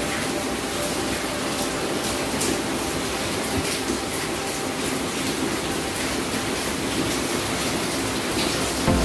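Steady rushing background noise with a faint low hum, with a few soft clicks over it.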